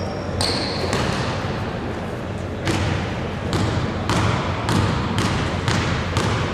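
A basketball being dribbled on a wooden gym floor: steady bounces about twice a second, starting about a third of the way in, each echoing in the hall.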